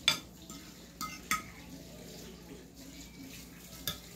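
Metal fork clinking and scraping against a plate as the last bits of food are gathered up: four sharp clinks, the loudest right at the start, two more about a second in and one near the end.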